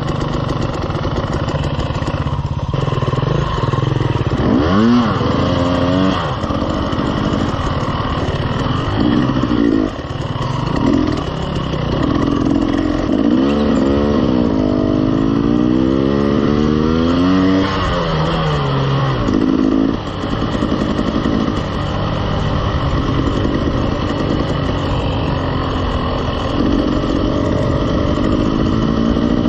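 KTM 300 two-stroke dirt bike engine running at low speed, the revs rising and falling as the throttle is opened and closed, about five seconds in and again several times in the middle.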